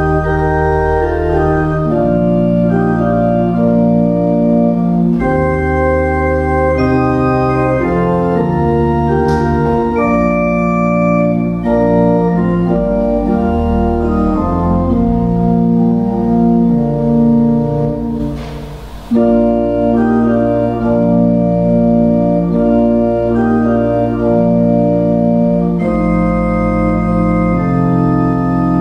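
Church pipe organ playing sustained chords in slow-moving phrases. There is one short break about two-thirds of the way through before the playing resumes.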